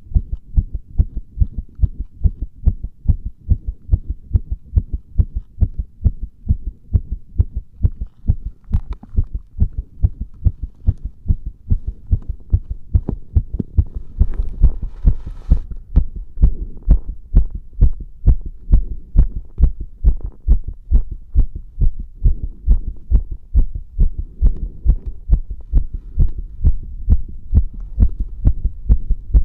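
Heartbeat heard through a microphone pressed against the chest: a steady lub-dub rhythm of low thumps. About halfway through the beats grow louder, with a brief rustle just before.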